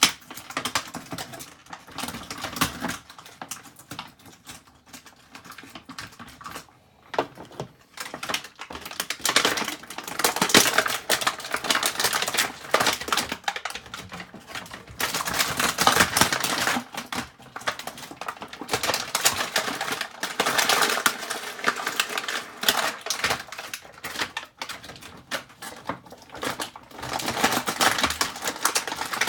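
Plastic and cardboard toy packaging being handled and opened: rapid clicking and crackling in bursts as the Bakugan figures are popped out.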